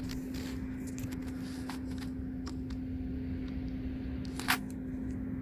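Light clicks and taps of parts being handled, with one sharper click about four and a half seconds in, over a steady low hum.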